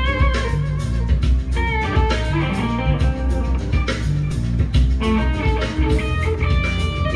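Two electric guitars jamming through amplifiers: melodic lead lines with bent, gliding notes over a continuous low accompaniment.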